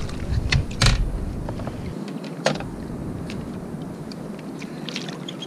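Water and wind rumbling against a kayak, loud for about the first two seconds and then quieter, with light clicks and knocks of a fishing rod and reel being handled. There is one sharper click about two and a half seconds in.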